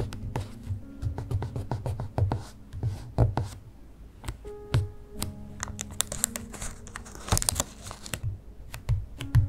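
Close-up taps and rubs of fingertips pressing small paper stickers onto a notebook page. In the second half, a sticker sheet crinkles and rustles as it is handled. Soft background music runs underneath.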